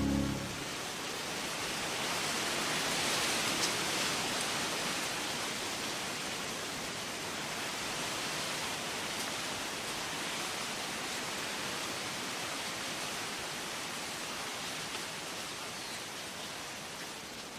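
A steady rushing hiss of outdoor noise with no distinct tones. It swells slightly a few seconds in, then fades gently toward the end.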